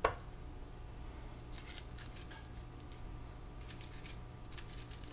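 A fork scraping seeds and stringy pulp out of a cut spaghetti squash in a few short, scratchy strokes, after a single sharp knock at the very start.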